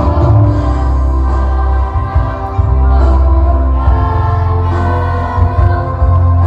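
A school choir singing over musical accompaniment with a heavy, steady bass.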